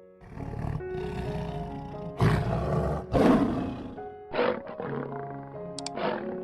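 A large animal roaring several times over steady background music. The loudest roars come about two to four seconds in, followed by shorter ones.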